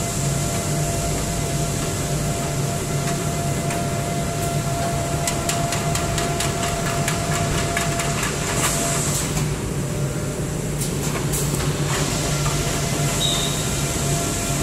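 Automatic two-piece corrugated folder gluer running: a steady mechanical rumble with a constant hum, and a run of quick light clicks through the middle.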